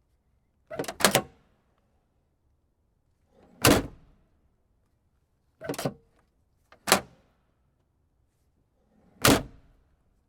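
Car trunk lid slamming shut: five sharp clunks with pauses of one to two and a half seconds between them, the first a quick double clunk.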